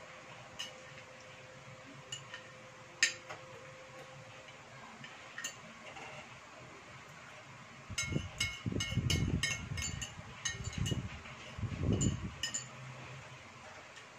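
Metal fork and spoon clinking and scraping on a ceramic plate while cutting food: a few scattered clinks, then a quick run of them in the second half. Low chewing sounds come in the same stretch.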